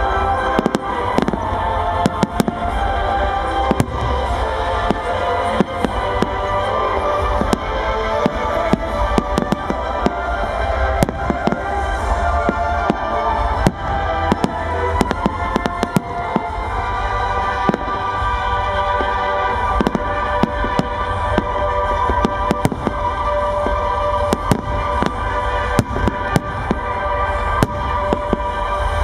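Fireworks display: shell bursts and crackling bangs in quick succession, several a second, over music with long held notes.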